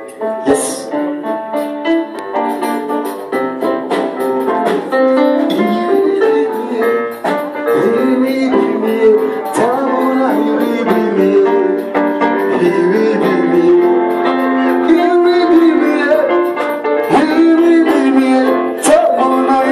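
Live church music led by an electric keyboard playing a melody and chords, with voices singing along.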